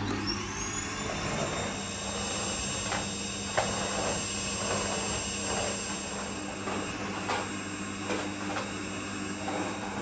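Bagless canister vacuum cleaner switched on at its foot pedal, its motor whine rising as it spins up, then running steadily. A few light knocks come from the nozzle being worked over the floor.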